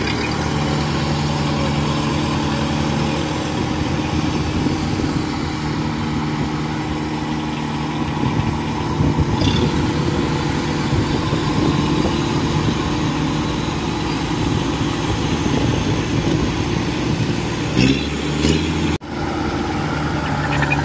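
Diesel engine of a Kubota DC-105X crawler combine harvester running steadily as the machine drives across a rice field on its tracks.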